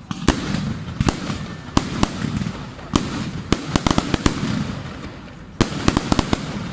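Fireworks display: aerial shells bursting in sharp bangs at irregular intervals, with quick runs of bangs about halfway through and again near the end, over a continuous low rumble.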